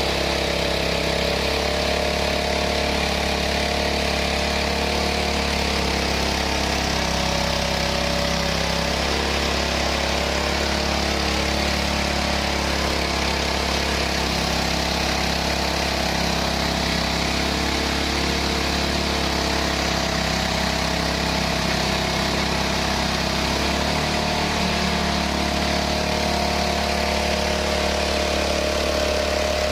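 Mahkota 820 Pro rice milling machine running steadily, a constant mechanical hum with several steady tones; the low part of the tone shifts slightly about 24 seconds in.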